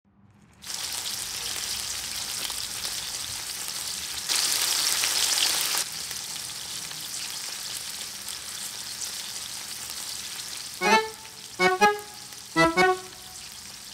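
Karanji pastries deep-frying in hot oil in a steel wok, a steady sizzle that grows louder for about a second and a half around five seconds in. Near the end, three short musical notes sound over it.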